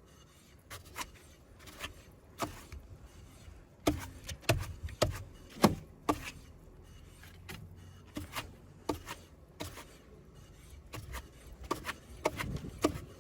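Irregular light clicks, knocks and faint rubbing from a jacked-up car wheel being turned by hand. The wheel is being rotated to check its wheel bearing for roughness.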